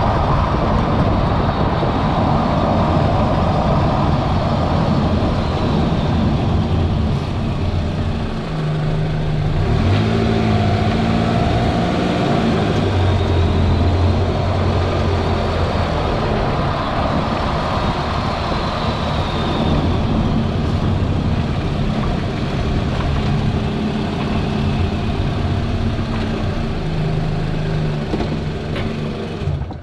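Toyota Vanguard 240S with its 2.4-litre 2AZ-FE four-cylinder petrol engine running, a steady rush of engine and road noise with a low drone that shifts in pitch now and then.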